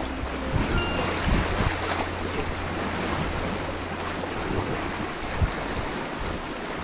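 Choppy sea waves washing and splashing against shore rocks, with wind on the microphone adding a steady low rumble that fades out about four and a half seconds in.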